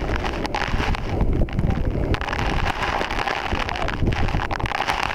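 Heavy waterfall spray from Niagara Falls pouring down like a downpour: a dense, steady rush of falling water with a deep low roar beneath it. Wind buffets the microphone, and drops strike the waterproof camera as short ticks.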